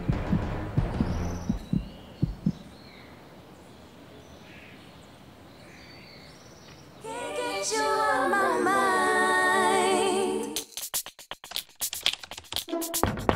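Soundtrack music: a pulsing beat at first, then a quieter stretch, then a sung passage with vibrato starting about halfway through, breaking into a choppy, stuttering electronic section near the end.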